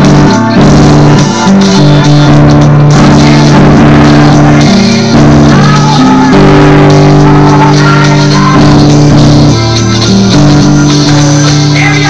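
Loud music with sustained chords over a steady beat.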